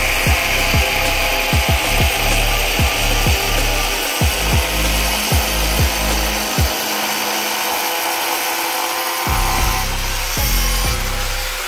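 Hand-held angle grinder cutting a cement board, under background music with a deep, regular thudding beat.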